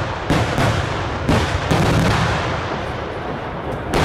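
Daylight fireworks display: a rapid barrage of aerial shells bursting, several sharp bangs about a third of a second in, around the middle and at the end, over a continuous rumble of smaller reports and their echoes.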